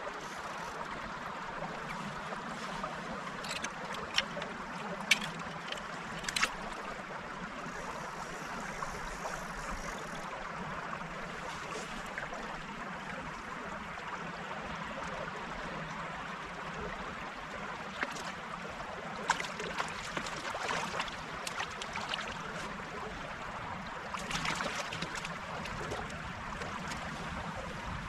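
Shallow river running over stones in a steady wash, with a few short sharp splashes and clicks scattered through it, most of them in the second half.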